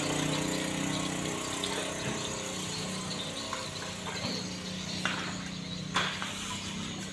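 A motor running with a steady hum, and two sharp knocks about five and six seconds in.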